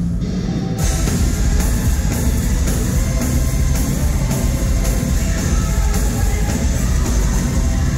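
A rock band playing live and loud, with guitars and a drum kit.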